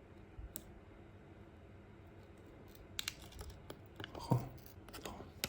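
Faint, scattered small clicks and ticks of hands and tweezers working a thin adhesive strip onto a phone's frame, mostly in the second half, with a brief low vocal hum about four seconds in.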